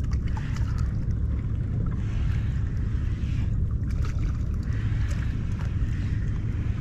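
Steady low rumble of wind buffeting the microphone, with water washing around a kayak underneath.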